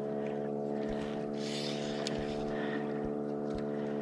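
Small outboard motor running at a steady, even speed, with water rushing along the side of an inflatable boat.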